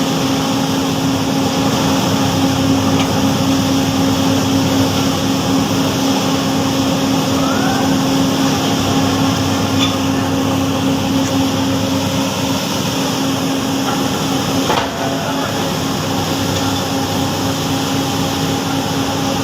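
Heavy factory machinery running steadily with a loud, constant hum and a few faint clicks, one of them about fifteen seconds in.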